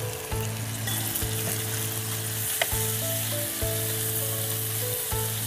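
Chicken legs frying in oil in an uncovered nonstick pan, a steady sizzle as the last of the cooking water boils off, with a few scrapes of a wooden spatula stirring them.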